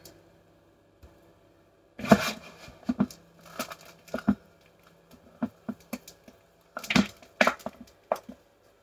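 Hands squeezing and pulling apart sticky currant-bun dough, making irregular squelches, tearing sounds and small clicks that start about two seconds in.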